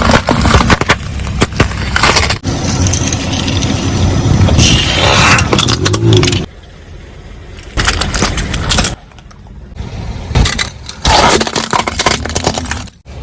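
Car tyre rolling over and crushing brittle objects: bursts of dense crackling and crunching, with a stretch of heavy tyre and engine rumble in the middle.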